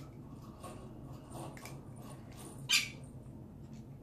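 Faint small plastic clicks and rattles of BBs being loaded into an airsoft pistol magazine by hand, with one brief, louder high-pitched sound a little before the end.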